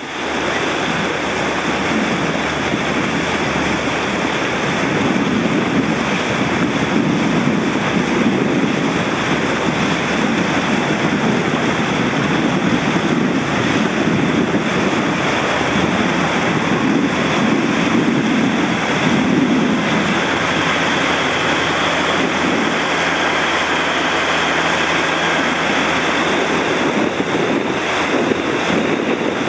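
Wind buffeting the microphone over steady rushing water and spray from dinghies moving fast in a strong breeze, a loud, even rush with no letup.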